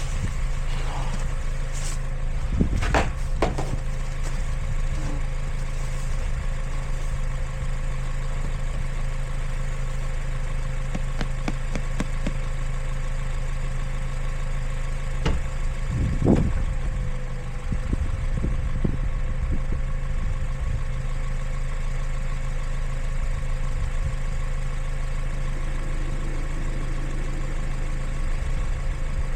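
Car engine running steadily with an even low hum and no revving, with a few brief knocks about three seconds in and again about sixteen seconds in.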